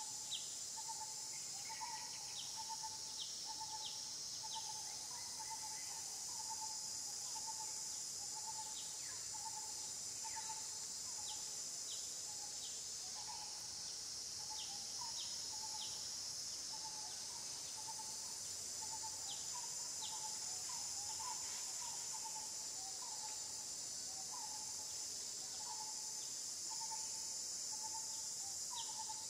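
Natural outdoor ambience: a steady, high-pitched insect drone throughout, with a bird calling over and over in short notes and, every few seconds, clusters of quick, high chirps.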